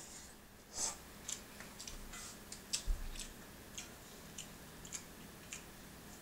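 Quiet eating sounds: a short slurp of pho noodles about a second in, then a run of small clicks and smacks from chewing and from chopsticks working in a metal bowl.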